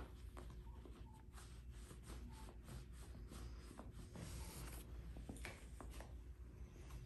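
Faint rustling and short scratchy ticks of a nylon soft pet carrier as a cat shifts and ducks down inside it, with a longer rustle about four seconds in, over a steady low room hum.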